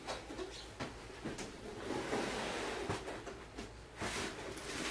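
Cardboard shoebox being handled and opened: rustling, with a few light knocks of cardboard.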